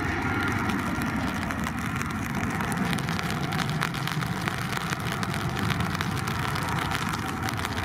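Airbus A319 jet engines at takeoff thrust as the airliner climbs out: a steady roar with a crackle, the high whine fading in the first second.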